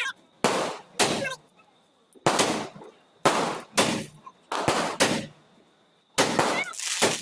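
Diwali firecrackers exploding one after another: about nine sharp bangs at uneven intervals, each with a short echoing tail.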